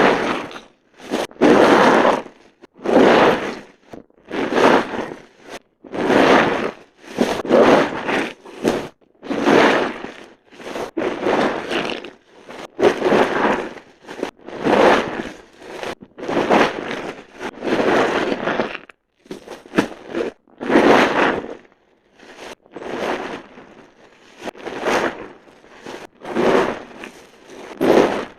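Soft, water-soaked bar soap being squeezed and squished over and over, one wet squish about every second and a half.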